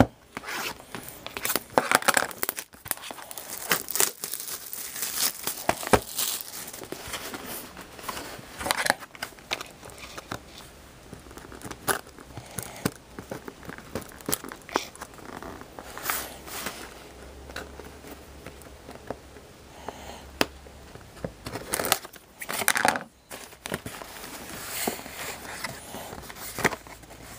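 Wrapping being torn and crinkled off a cardboard trading-card hobby box, and the box being handled and opened: a busy run of crackles, tears and small taps.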